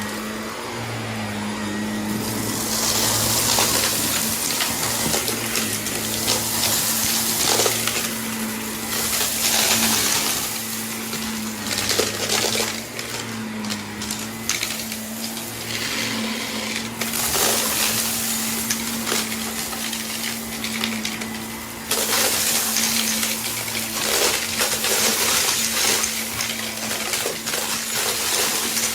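Vacuum cleaner running with a steady motor hum, with long stretches of crackling and rattling on top, as of debris being sucked up.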